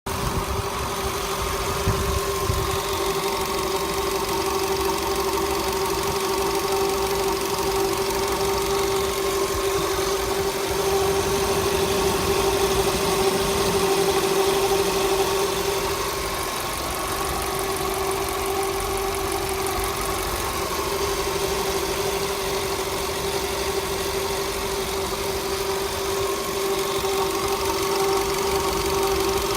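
VW Polo Sedan engine running steadily, with a knock from its water pump: the pump is worn and due for replacement. A steady tone sits over the engine sound throughout.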